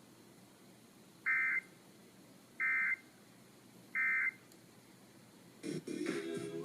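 Emergency Alert System end-of-message (EOM) code: three short, identical two-tone data bursts about a second apart, signalling the end of the Required Monthly Test on a radio broadcast. Near the end the station's programme audio comes back on.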